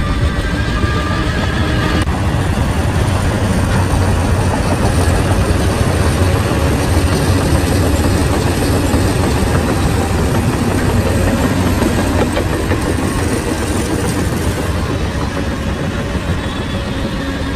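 Shantui bulldozer's diesel engine running steadily and heavily as the machine works, with dense low engine noise throughout.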